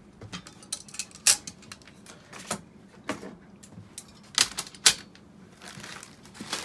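Plates of a manual capsule-filling machine being fitted onto their guide pins, clicking and knocking together in a scattered series of sharp taps, two of the loudest close together past the middle.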